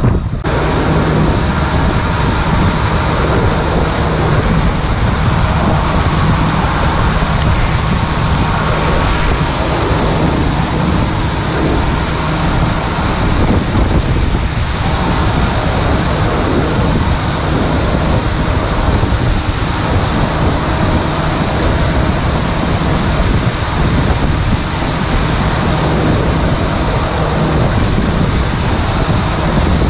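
Wheat pouring from a 1928 Holt Model 36 combine's unloading spout into a steel grain truck box: a steady rushing hiss, with the combine's machinery humming low underneath.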